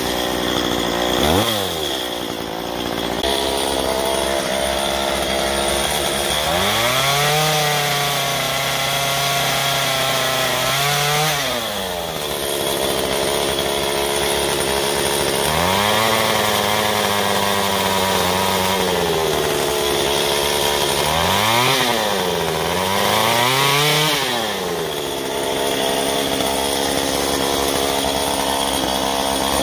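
Small two-stroke carving chainsaw cutting into Douglas fir, the throttle opened and let off over and over. The engine rises to full speed for a few seconds at a time while the bar cuts, then drops back, with two quick blips about three quarters of the way through.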